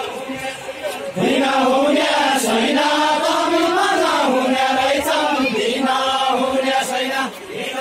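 A line of men singing a Deuda, the chant-like Far-Western Nepali folk song sung together by dancers with linked arms. The singing swells sharply louder about a second in.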